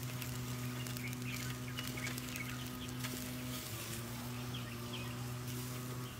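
Beef steaks sizzling on a wire mesh grill over charcoal, a steady crackling hiss full of small pops, as metal tongs move the meat. Faint bird chirps and a steady low hum sit underneath.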